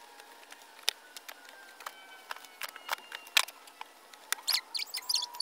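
Clothes and small items being handled and moved while drawers are emptied: scattered light clicks and rustles, with a quick run of short high squeaks near the end.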